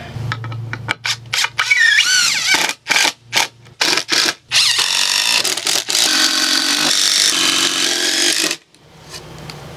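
Cordless drill driving screws into pine 2x lumber: several short bursts of the motor whining up and down in pitch, then one longer run of about four seconds that stops suddenly near the end.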